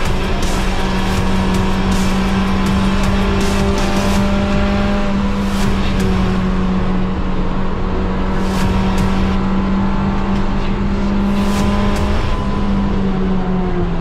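Mazda race car's engine heard from inside the stripped cockpit, running hard at high, nearly steady revs with tyre and road noise underneath. Near the end its pitch dips briefly and rises again.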